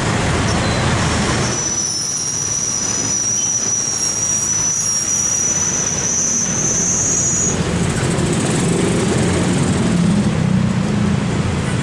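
Key-cutting machine's cutting wheel grinding a key blank: a high-pitched squeal from about a second and a half in to about seven and a half seconds, rising slightly before it stops, over a steady background din.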